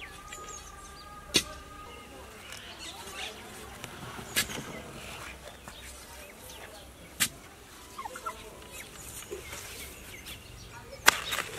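Domestic turkey calling, with a few sharp knocks every few seconds; the loudest knock, near the end, is a digging tool striking the soil.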